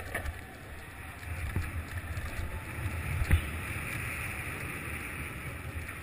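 Skateboard wheels rolling fast over city asphalt: a steady low rumble with wind noise on the microphone, and one sharp knock about three seconds in.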